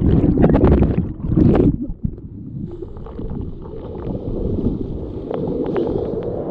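Water heard by a kayaker's helmet camera: first a loud, muffled churning with bubbling while the camera is underwater, cutting off about two seconds in as it comes up. Then the steady rush of a brown-water rapid, with a few sharp paddle splashes near the end.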